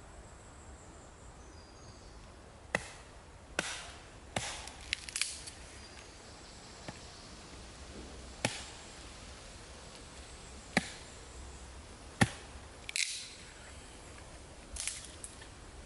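Small axe chopping a branch held against the forest floor: about ten sharp wooden strikes at uneven intervals, a quick cluster a few seconds in and the loudest one late on.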